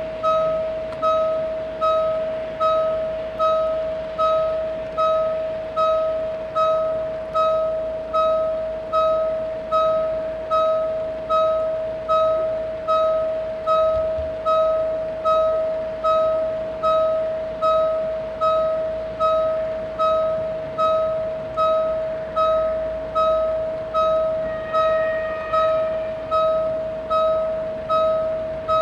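Railroad level-crossing warning bell ringing continuously, one clear ringing strike about one and a half times a second, each fading into the next: the crossing's alarm that a train is coming.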